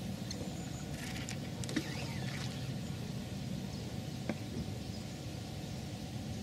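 Outdoor riverbank ambience with a steady low rumble, broken by a few light clicks and knocks as a feeder rod is handled and set down on its rod rest, one near the start and a single sharp click a little past the middle.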